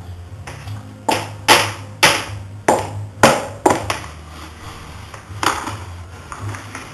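Clear plastic storage bin knocking against a hardwood floor: six sharp knocks about two a second, then two softer knocks near the end.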